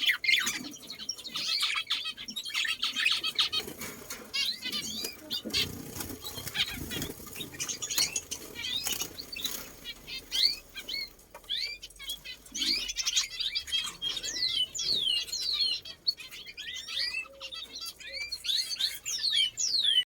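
A flock of small caged birds chirping, many short rising and falling calls overlapping, with wings fluttering; the calls grow busier toward the end.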